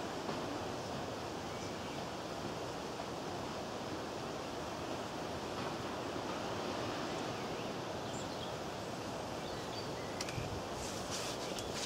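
Steady wind noise buffeting the microphone, with a few faint clicks near the end.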